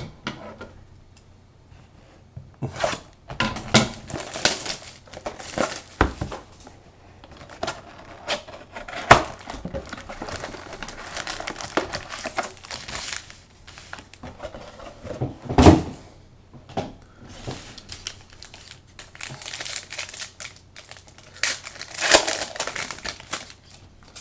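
Plastic trading-card pack wrappers being crinkled and torn open, with irregular crackling, rustling and sharp clicks.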